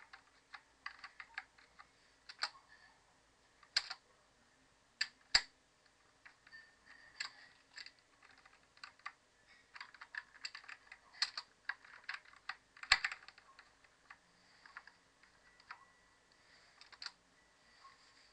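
Computer keyboard keys tapped in irregular clusters of sharp clicks, a few louder strikes among them.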